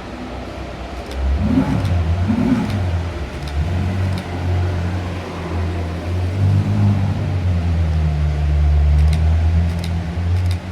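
Supercar engine blipped twice in quick succession about a second and a half in, then running steadily.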